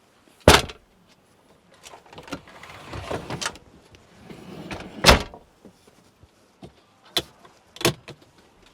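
Two loud, sharp bangs about five seconds apart, like a door or hatch being shut, with rustling and scraping between them and two lighter knocks near the end.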